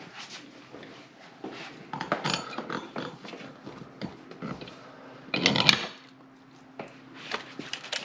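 Small metal lock parts handled and set against a steel safe door: scattered light clinks and knocks, with one louder clack about five and a half seconds in.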